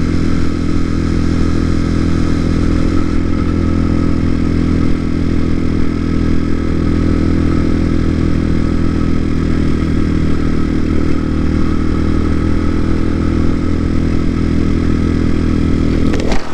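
TaoTao TBR7 dirt bike's single-cylinder four-stroke engine running at a steady speed while riding, its pitch holding even.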